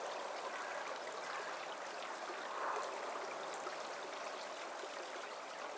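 Small shallow stream running over a gravel bed: a steady, even babble of flowing water.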